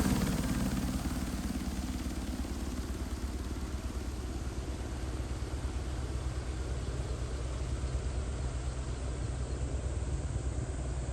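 Crop-spraying helicopter moving away after a close pass: its sound fades over the first couple of seconds, then settles into a steady distant drone of rotor and engine with a fast, fine pulsing.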